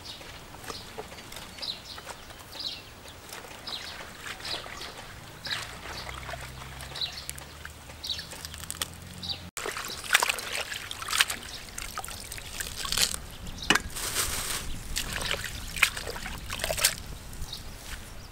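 Hands washing leafy greens in a plastic basin of water: faint dripping and trickling at first, then louder sloshing and splashing about halfway through as the greens are rubbed and swirled in the water.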